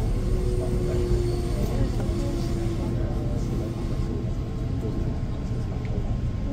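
Steady low rumble of urban vehicle traffic, with a faint humming tone in the first couple of seconds.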